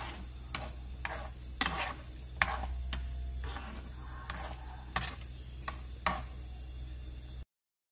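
Metal spoon stirring sliced chillies, shallots and garlic simmering in water in a nonstick pan, scraping and tapping against the pan roughly once a second over a low steady hum. The sound cuts off abruptly near the end.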